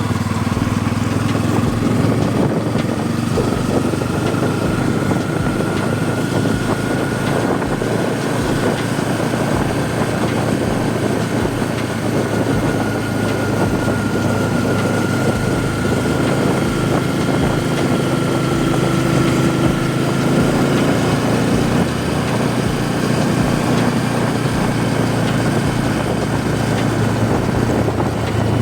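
Bajaj Pulsar N250's single-cylinder engine and exhaust running steadily at an even cruising pace on the move, under a continuous rush of wind and road noise.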